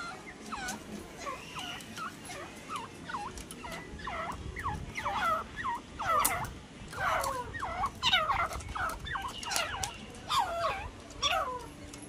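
Grey francolins calling: a rapid run of shrill, sharply bending notes, two or three a second, growing louder and more crowded about four seconds in, with calls overlapping at times.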